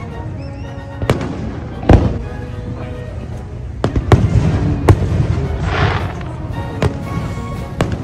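Aerial fireworks shells bursting in a string of sharp booms, about seven in eight seconds, the loudest about two seconds in, with a brief crackling hiss about three-quarters of the way through. Music plays underneath.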